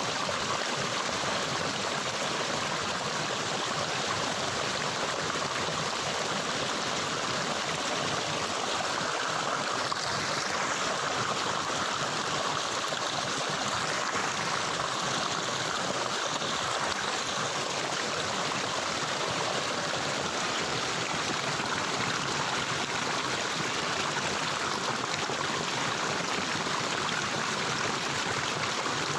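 A stream of water running steadily, an even rushing and splashing with no pauses.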